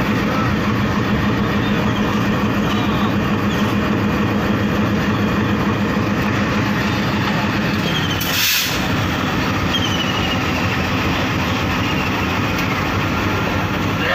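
Broad-gauge diesel locomotive engine running steadily at idle with a low hum, as the loco is readied for coupling to the coaches. A brief sharp burst of noise cuts in about eight seconds in.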